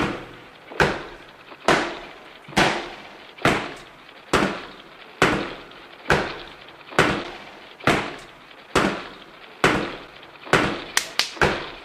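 Sharp bangs repeating evenly about once a second, each dying away before the next, then four in quick succession near the end.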